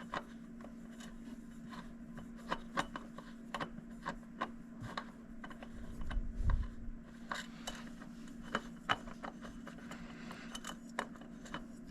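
Scattered light clicks, taps and scrapes of hands handling metal parts as a new spin-on oil filter is tried against the engine's filter mount, over a steady low hum.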